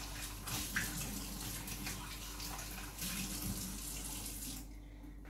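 Kitchen tap running, rinsing out a drinking bottle; the water stops shortly before the end.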